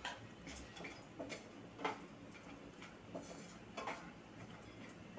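Cashews frying in shallow oil in a non-stick pan, stirred with a wooden spatula: faint, scattered soft clicks and scrapes, some in pairs about half a second apart.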